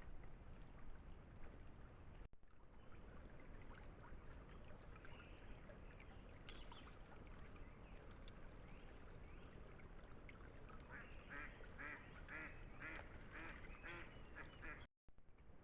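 A duck quacking faintly over a low background hiss, with a few scattered calls and then a run of quacks, about two a second, in the last few seconds.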